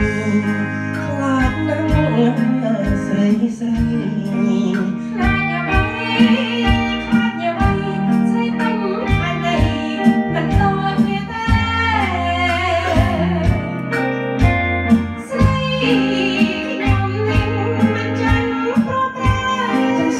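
Karaoke duet of a Khmer oldies song: a man and then a woman singing into a microphone over a backing track with guitar, bass and a steady beat.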